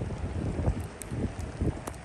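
Wind buffeting the microphone in uneven low gusts, with a few sharp ticks.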